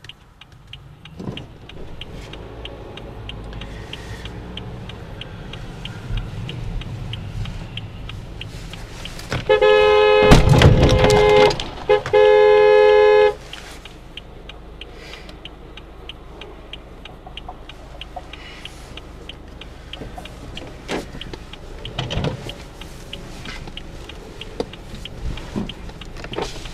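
Car horn sounding in two long blasts over steady road and engine noise heard from inside a car. The first blast, about a third of the way in, lasts about two seconds, and a shorter one follows right after.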